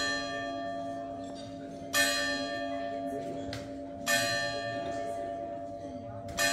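Church bell tolling slowly, one stroke about every two seconds, each ringing on under the next.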